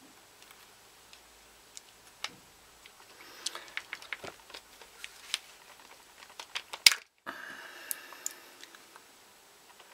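Scattered metallic clicks and clacks of a Ruger 22/45 Lite pistol being handled and taken apart. The clicks come thickest in the middle, with the loudest sharp click a little before a brief scraping slide of parts.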